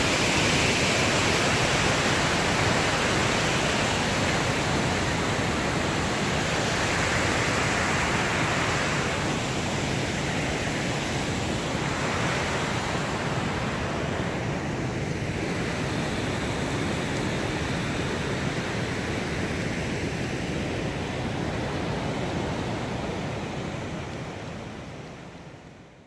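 Steady rush of water pouring through a river dam, fading out near the end.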